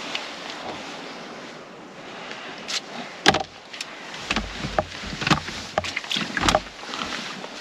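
Knocks, clicks and clatter of fishing tackle and a seatbox being handled as an angler shifts and gets up, the loudest knock about three seconds in, with low rumbling on the microphone in the middle.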